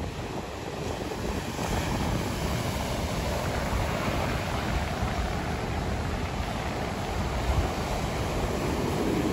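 Sea surf breaking on a sandy beach, a steady wash of noise, with wind buffeting the microphone and adding a low rumble.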